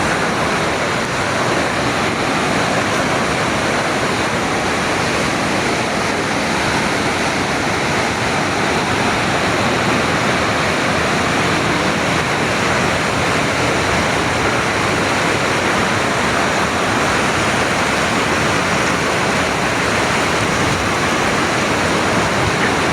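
Waterfall: the loud, steady rush of falling water, even and unchanging throughout.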